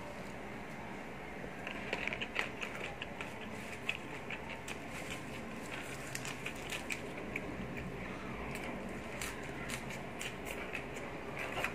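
Close-up chewing of spicy squid-skin salad and raw leafy greens: irregular small crunching clicks that start about two seconds in, over a steady low background hiss.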